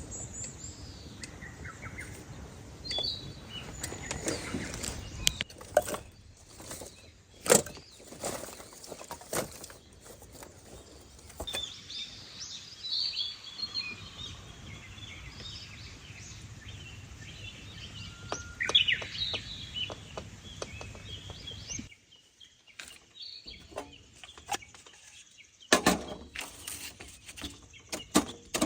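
Small birds chirping over a steady outdoor background, with scattered sharp clicks and knocks from handling things at a campsite. The background drops away briefly a little past the middle.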